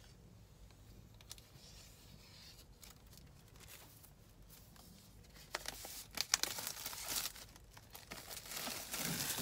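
Plastic shrink-wrap being torn and peeled off an iPad Pro box, crinkling, with sharp crackles. It starts about halfway in after a quiet stretch.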